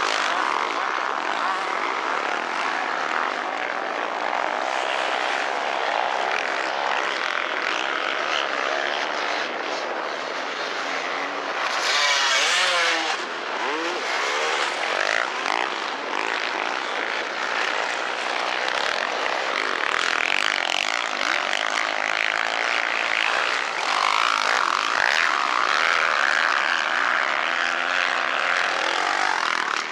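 Enduro motorcycle engines running and revving as bikes race along the course. About twelve seconds in, one bike passes close and loud, its engine note rising and falling.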